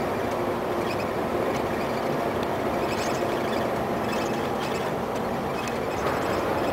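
Mercedes-Benz Actros 1848 truck's V6 diesel engine and tyre noise heard from inside the cab, running steadily while cruising on the open road.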